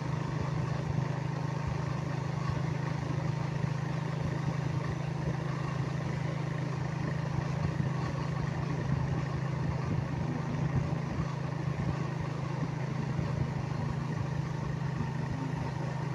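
Motorcycle engine running at a steady cruise, an even drone with road noise and no change in speed.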